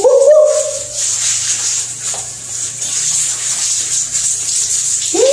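Handheld shower head spraying a steady hiss of water onto a clothed person's head and jacket. A person's voice calls out briefly at the start, and again with a rising pitch near the end.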